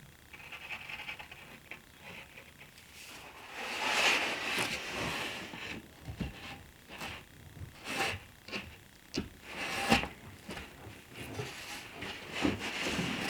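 Plywood panels being handled and fitted together in a glue-up: irregular wooden knocks and clunks with scraping and rubbing between them.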